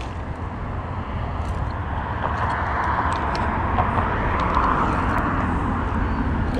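Steady traffic noise from vehicles crossing the bridge, swelling about two seconds in as a vehicle passes, with a few faint clicks from a spinning reel being cranked against a fish.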